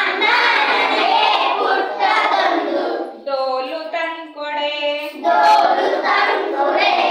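Children singing a Kannada action song together in chorus, with a single voice singing one line alone in the middle before the group comes back in.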